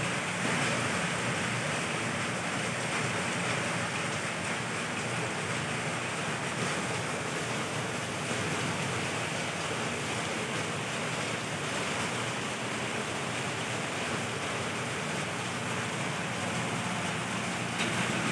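Rain falling steadily: an even, unbroken hiss of heavy rain.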